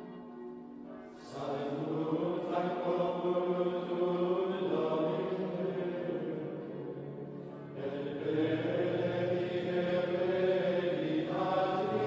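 Slow background music of long held tones, swelling louder about a second in and again near eight seconds in.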